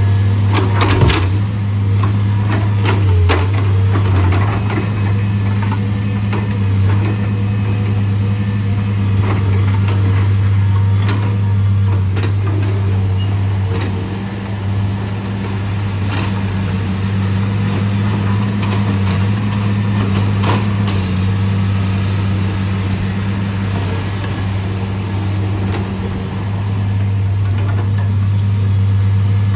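Diesel engine of a Cat excavator-based log loader running steadily as it swings and handles logs with its grapple, with scattered knocks and clanks of logs and grapple, the sharpest about a second in and again around three seconds in.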